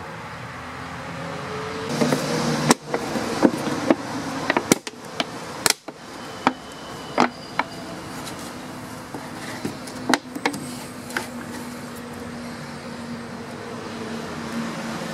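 Empty plastic 2-litre soda bottle handled by hand, giving irregular crinkles and sharp clicks, busiest in the first two-thirds. A steady hum from an air-conditioning unit runs under it.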